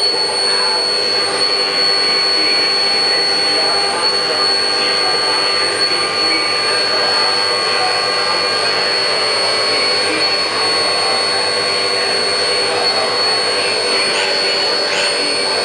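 CNC machine machining a metal bracket: the spindle holds a steady high-pitched whine over a rough, continuous cutting noise.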